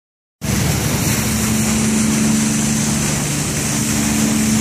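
Tour boat's engine running steadily at cruising speed, a constant low hum, under a steady rush of water and wind past the moving boat. It cuts in abruptly about half a second in.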